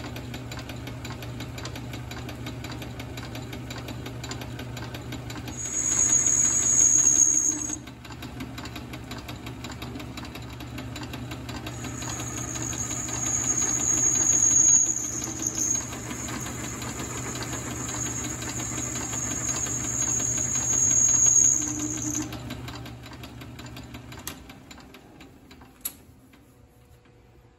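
South Bend metal lathe running with its motor humming steadily while a twist drill in the tailstock chuck bores into spinning aluminium bar stock. The cut squeals high-pitched, briefly about six seconds in and again for about ten seconds from twelve seconds in. The lathe's hum stops about twenty-four seconds in, and a sharp click follows near the end.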